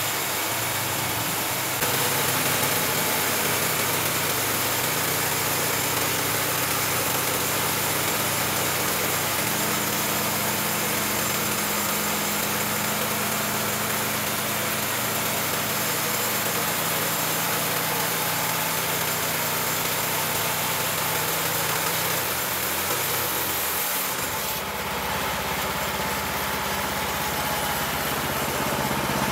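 Horizontal band sawmill's 16 HP engine running steadily while the band blade saws through a hard teak log. The sound changes character about 24 seconds in.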